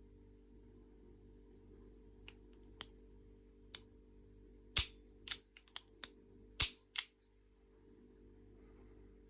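Sharp mechanical clicks from working the action of a Tanaka Works Smith & Wesson replica revolver: about ten clicks over some four seconds, the two loudest about two seconds apart. A steady low hum runs underneath.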